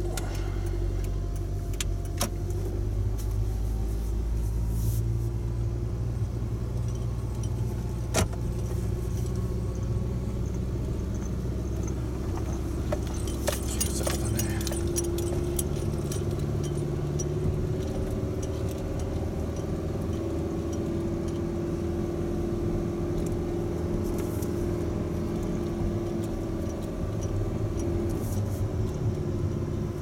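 Honda Odyssey driving slowly, heard from inside the cabin: a steady engine and road hum that settles into a higher steady tone about halfway through. A few sharp clicks and rattles are scattered through it, with a cluster of them around the middle.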